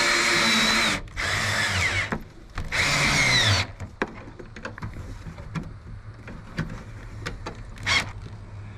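Cordless drill driving bolts down tight: three runs of a second or so each, the motor's whine dropping as each run stops. Then quieter clicks from handling the tool and bolts, and one more short burst near the end.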